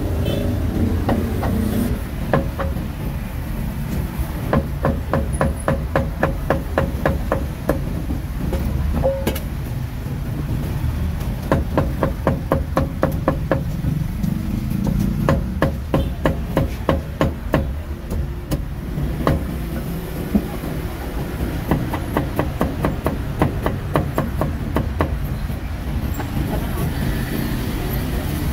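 Cleaver chopping roast meat on a chopping block in quick runs of strokes, about four a second, with pauses between the runs. Street traffic runs underneath.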